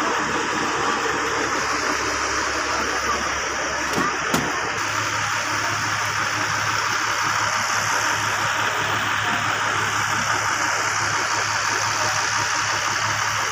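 Steady rushing of moving air. A short knock comes about four seconds in, and just after it a low steady hum of electric pedestal fan motors joins in.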